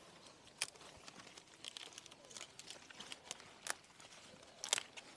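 Scattered crackling rustles and a few sharp clicks, the loudest about half a second in and twice near the end.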